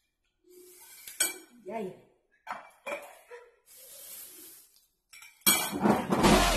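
Wooden chopsticks clicking and scraping against ceramic plates of noodles while two people eat, with short, soft mouth and voice sounds. About five seconds in, a loud, dense burst of sound starts and keeps going.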